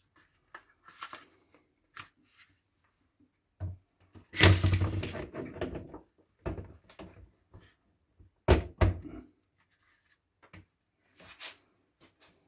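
Handling knocks and clatter as the electric kettle and its mains plug are handled and plugged in, the loudest a rough thump and rattle about four and a half seconds in and two sharp knocks about eight and a half seconds in, with small clicks between.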